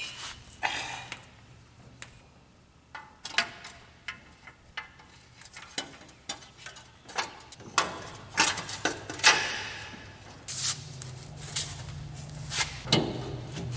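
Irregular clicks, knocks and short scrapes of hand tools and metal parts being handled during rear brake and hub work.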